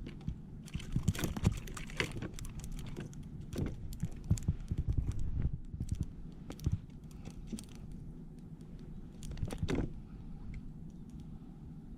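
Irregular clicks, knocks and light rattling of fishing gear being handled in a kayak, most crowded early on and again about four seconds in, with a single knock near ten seconds.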